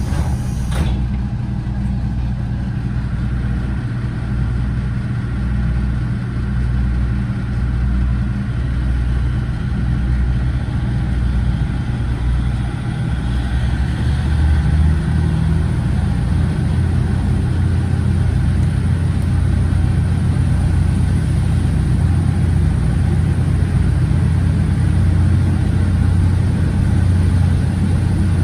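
The KiHa 47 diesel railcar's original DMF15HSA horizontal six-cylinder diesel engine working under power as the train gathers speed, heard from inside the passenger car. The engine note shifts and grows louder about halfway through.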